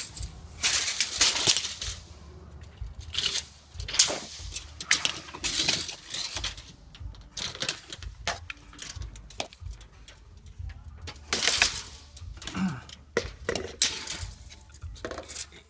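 Irregular knocks, clicks and scraping rustles, spaced unevenly with no steady rhythm: handling noise from a phone being carried and moved about.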